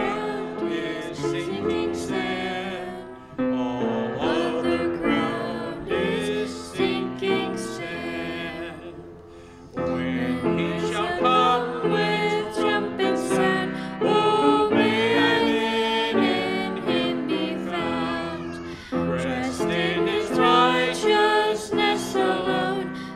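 A man and a girl singing a hymn together over instrumental accompaniment, with a short lull between phrases about nine seconds in.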